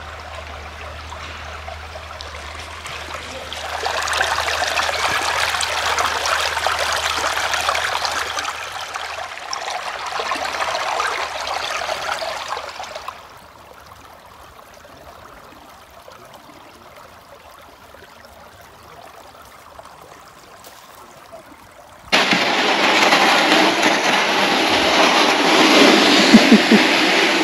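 Water trickling and running in a partly frozen stream, swelling for several seconds and then dropping away to quiet. About 22 seconds in, it cuts to a plastic sled being dragged over packed snow: a louder, steady scraping.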